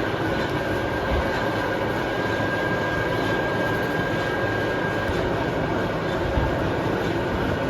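Manual lathe running steadily while boring a die, a continuous mechanical rumble with a thin, steady high whine over it.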